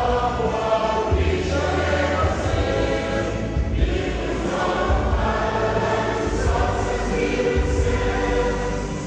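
A choir singing, with a steady low bass that comes and goes underneath.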